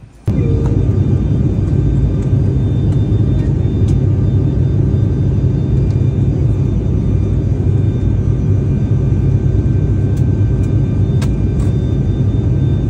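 Loud, steady rumble of a vehicle's engine running while under way, starting abruptly about a third of a second in.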